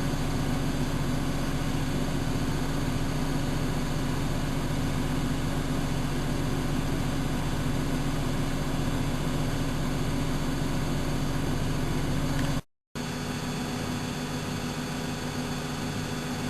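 Miele Novotronic W914 washing machine running with a steady motor hum during a boil-wash programme. The sound cuts out for an instant about thirteen seconds in, then carries on slightly quieter.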